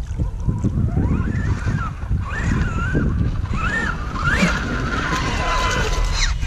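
Brushless electric motor of a Losi Super Rock Rey RC truck whining, its pitch rising and falling with the throttle as it runs through the pond and up the bank; the whine cuts off suddenly near the end. Wind rumbles on the microphone underneath.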